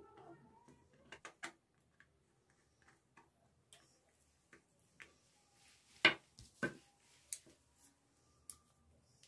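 Scattered clicks and taps of hands handling a plastic switch board, its terminal screws and small hand tools during wiring, with the loudest pair of clicks about six seconds in.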